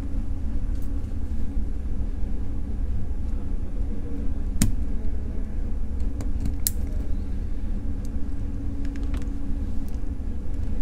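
A steady low rumble, with a few sharp little clicks as a spring bar is worked with a spring bar tool and snapped into the watch lugs to refit the rubber strap.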